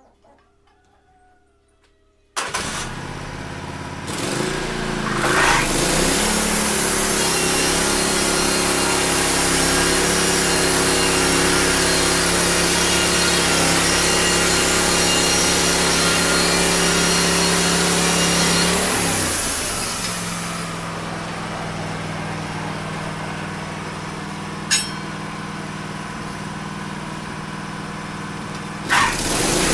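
Faint music fades out, then a Wood-Mizer LT15 bandsaw mill's engine comes in abruptly and its band blade saws lengthwise through a log as the saw head is pushed along the bed. The louder cutting lasts about thirteen seconds. After that the engine runs quieter, with one sharp click, and grows loud again near the end as the next cut begins.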